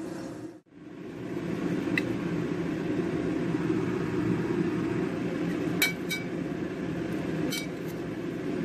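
A spoon clinking sharply against a stainless steel plate and dishes while meatball mixture is stirred, about four clinks in all, two of them close together just after the middle, over a steady low hum.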